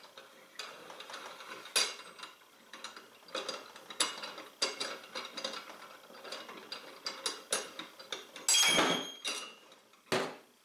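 A clutch compression tool being wound back off a Polaris RZR XP 1000 primary clutch: a run of irregular metal clicks, then a louder, ringing metal clatter about eight and a half seconds in.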